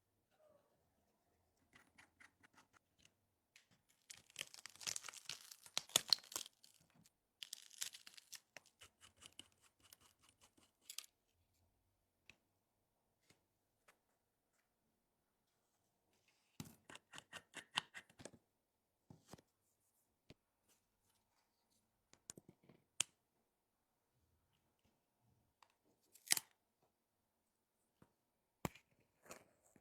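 Small crackling, scraping and tearing sounds of hand work on a cracked iPhone back glass, in a few short bursts with single sharp clicks between them.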